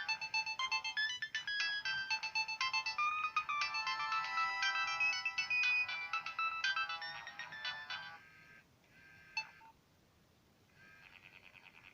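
Nokia 1200 mobile phone ringtone playing a fast, busy melody of quick notes, which stops about eight seconds in. A single short blip follows, then a faint, rapidly pulsing tone starts near the end.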